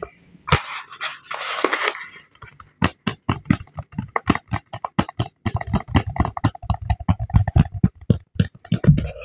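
Fingertips tapping fast on a cardboard shipping box as an ASMR trigger: a rapid, even run of light taps, several a second, after a short rustle of the cardboard being handled.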